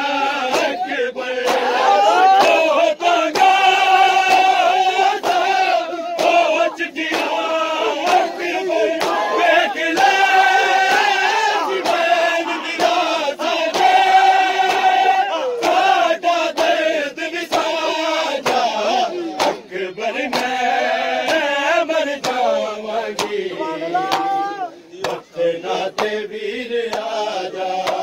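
A large crowd of men chanting a Shia mourning lament (nauha) in unison, held sung notes rising and falling. Sharp slaps in a steady beat run through it: hands striking chests in matam.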